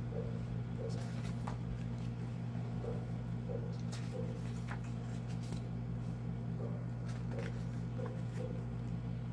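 Pages of a softcover book being handled and turned by hand: soft paper rustles and light flicks now and then, over a steady low hum.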